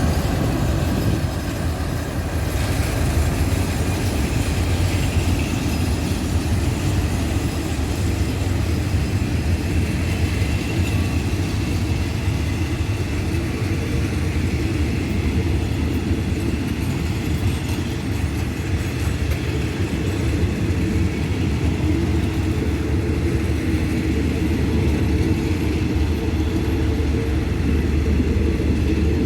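Diesel locomotive-hauled train running with a steady low engine rumble and the noise of rolling railcars.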